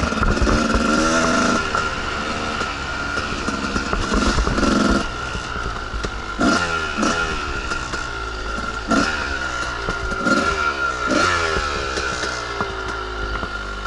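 Two-stroke dirt bike engine under way on a trail, its revs rising and falling with the throttle, with several quick rev blips in the second half.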